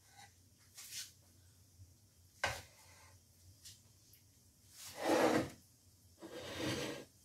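Dishes being handled on a kitchen countertop: a sharp knock about two and a half seconds in, then two longer scraping rubs of crockery sliding across the counter near the end, the first of them the loudest.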